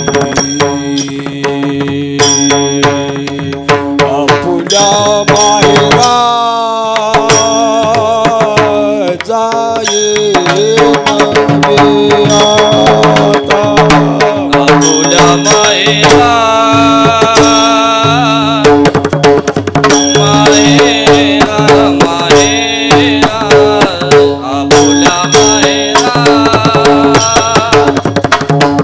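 Devotional abhang being sung to kirtan accompaniment: a voice in long, winding melodic runs over steady sustained harmonium notes, with dense hand-drum strokes keeping the rhythm.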